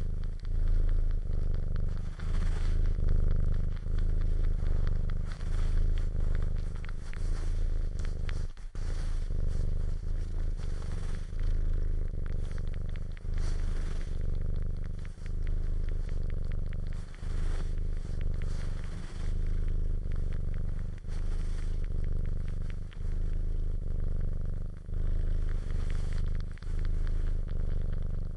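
A domestic cat purring steadily, the low purr swelling and dipping with each breath about every one and a half to two seconds, with wet clicking suckling sounds over it.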